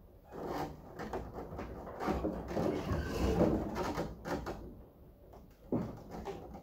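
Heavy wooden slab scraping and knocking against a stack of lumber as it is hauled up and laid on top: a run of irregular scrapes and knocks, with one last knock near the end.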